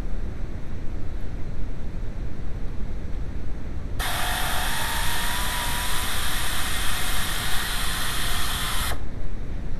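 Low steady engine rumble, then about four seconds in the VW mk2's faulty starter motor sets up a loud whine and grind with a slowly rising tone that cuts off sharply about five seconds later. The noise is the sign of a starter whose bendix drive won't go back.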